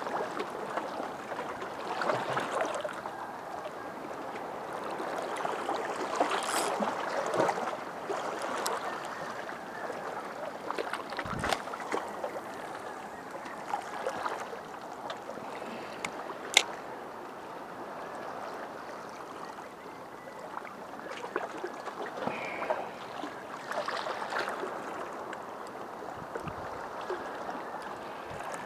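Small waves washing and lapping against shoreline rocks, swelling and fading every few seconds. A few sharp clicks sound over it, the loudest about midway.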